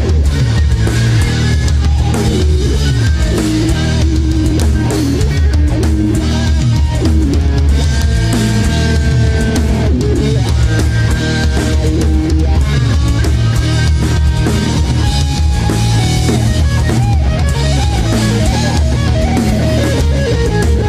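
Live hard rock band playing: distorted electric guitars, bass and drum kit, with a guitar line of bending, wavering notes over the rhythm.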